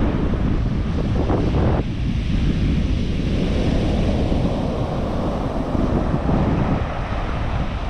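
Sea surf breaking on the shore, with strong wind buffeting the microphone as a low rumble; a wave rushes in and swells over several seconds in the middle.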